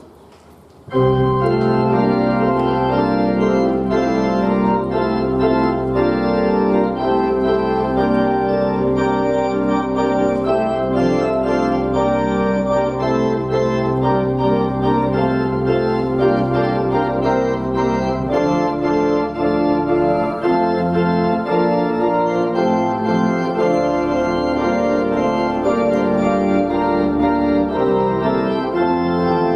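Organ playing full sustained chords that begin about a second in, over a held low bass note that gives way to a moving bass line after about eighteen seconds.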